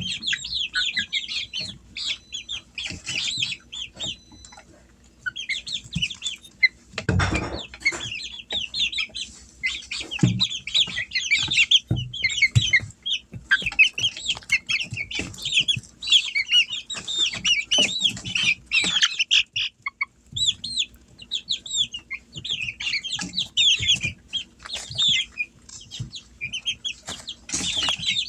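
Half-grown chicks peeping and chirping almost without pause in a brooder, many short high calls overlapping. About seven seconds in comes a single louder thump, likely a bird flapping or knocking against the box.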